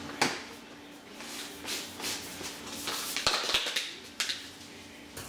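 Large plastic whey protein tub being handled: a sharp click from the lid near the start, scattered rattling and scraping, then a dense flurry of clicks and rattles with two dull knocks about three seconds in.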